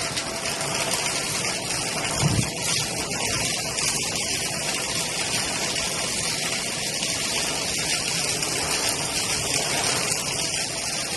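Shark vacuum cleaner running on carpet, sucking up small crunchy bead-like debris that rattles and crackles through the machine, with one low thump about two seconds in.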